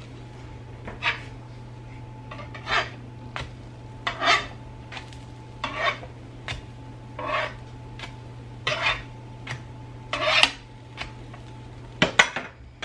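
A slotted metal spatula scraping across a nonstick electric griddle as it slides under pancakes and flips them, about eight short scrapes at roughly one every second and a half, over a steady low hum.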